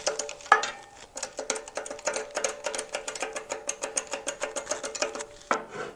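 A small machine running with a rapid, even ticking rattle, about ten ticks a second, over a steady hum. There is a sharper knock about half a second in, and the machine stops just before the end.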